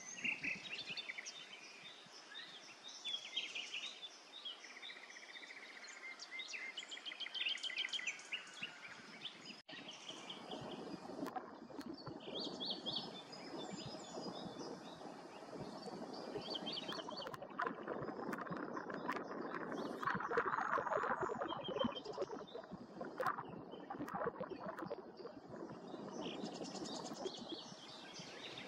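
Small wild birds chirping and singing, busiest in the first half and again near the end, over an even outdoor background noise that grows louder about halfway through, with a few sharp clicks.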